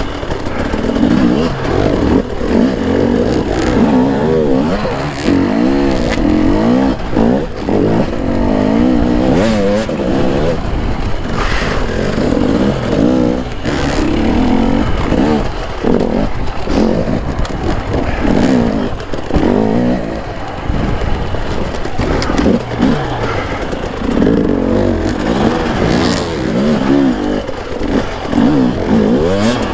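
Two-stroke enduro motorcycle engine revving up and down again and again as it is ridden hard over obstacles, with short knocks along the way.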